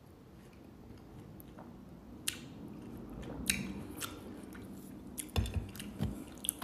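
A person chewing a mouthful of watermelon, with scattered small wet clicks from the mouth that come more often in the second half. A couple of low thumps near the end.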